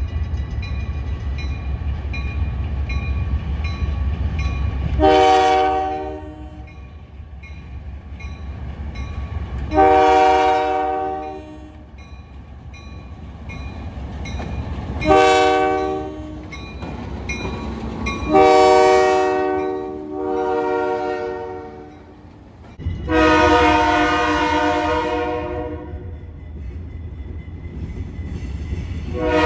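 A multi-chime air horn, of the kind on a railway locomotive, sounding a series of about six separate blasts a few seconds apart. The longest blasts come in the second half. In the first few seconds, before the horn starts, a low rumble runs on its own.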